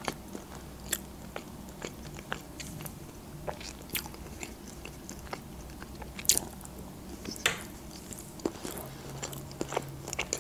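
A person chewing and eating close to a microphone: irregular mouth clicks and smacks, with two louder ones about six and seven and a half seconds in.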